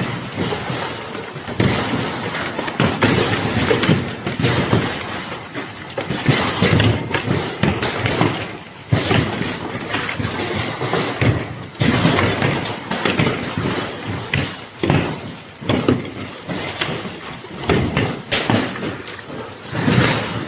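Large hailstones pelting down in a dense, irregular clatter of thuds and knocks with no let-up.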